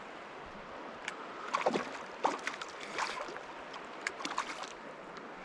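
Creek water running, with a few brief splashes and small clicks scattered through it.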